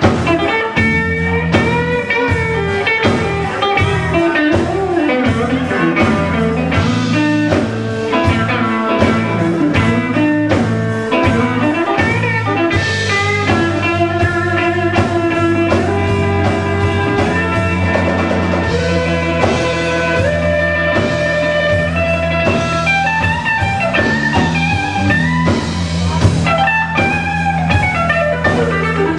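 Live blues band playing: electric guitar lead with bent notes over bass and drum kit.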